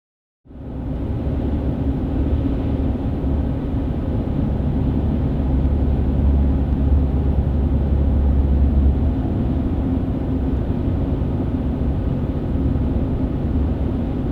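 Chevy Colorado ZR2's 3.6L V6 running through a Flowmaster FlowFX straight-through cat-back exhaust, a steady deep drone that swells a little in the middle before settling.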